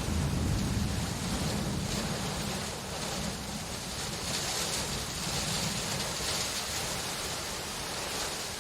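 Steady rain hiss, swelling and easing a little, over a low rumble that is strongest in the first few seconds.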